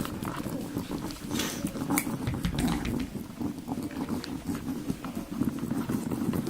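Three-week-old Siberian Husky puppies making a busy, continuous run of small vocal noises, mixed with many small clicks and scuffles.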